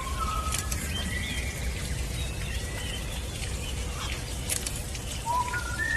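Small birds chirping in short, faint whistled notes over a steady outdoor background rumble.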